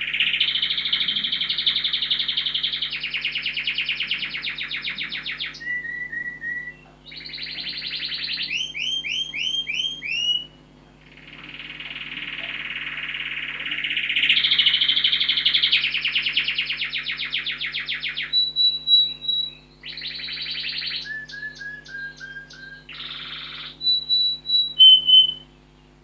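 Domestic canary singing in two long bouts of fast rolling trills, mixed with short clear whistled notes and quick down-slurred chirps. The second bout begins about eleven seconds in.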